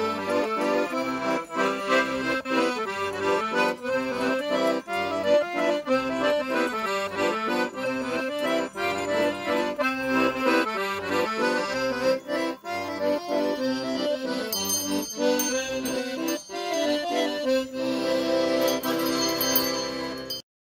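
Accordion playing a lively traditional tune, melody over a regular bass accompaniment, cutting off suddenly near the end.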